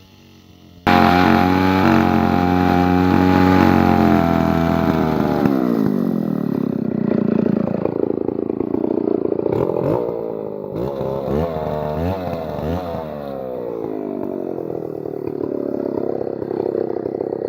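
Chainsaw engine running at high speed, then dropping back after about five seconds. It is then revved up and down in several quick blips before settling into a steadier run.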